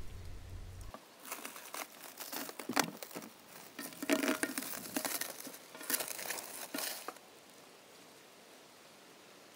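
Irregular crinkling and rustling with scattered crackles and clicks, lasting about six seconds and stopping about seven seconds in.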